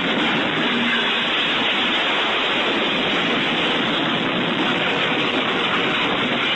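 A steady, loud rushing hiss with no distinct impacts, tones or voices.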